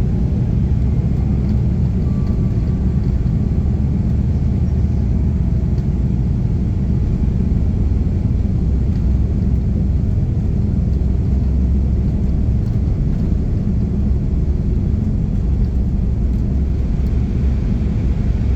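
Steady low rumble of an Embraer E195 airliner's jet engines and rushing air, heard from inside the cabin during takeoff.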